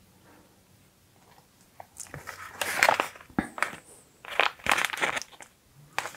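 Crinkling and rustling of a plastic dubbing packet as a pinch of dubbing is pulled from it, in irregular crackly bursts that start about two seconds in.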